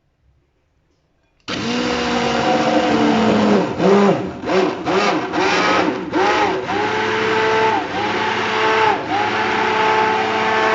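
Electric blender switched on about a second and a half in, its motor running fast through a liquid mix of milk, sweetened condensed milk and lemon juice. The whine dips and recovers in pitch several times in the middle as the load changes, then holds steadier.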